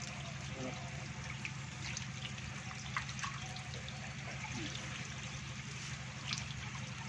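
Water splashing and trickling in a shallow concrete tank packed with live stinging catfish, with many small splashes scattered through a steady hiss. A steady low hum runs underneath.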